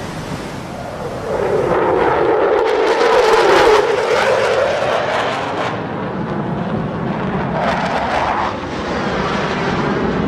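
F-16 fighter jet flying past, its engine noise swelling about a second and a half in, peaking and fading, then swelling again near the end as the jet passes once more.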